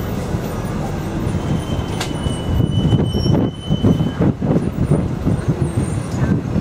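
Open-top double-decker tour bus running along a city street: steady engine and road noise, with wind gusting irregularly on the microphone in the second half. A thin high squeal sounds for about a second and a half starting about two seconds in.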